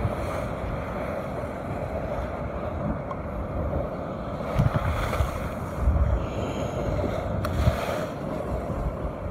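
Wind buffeting the microphone in irregular low gusts over the steady wash of surf breaking on rocks.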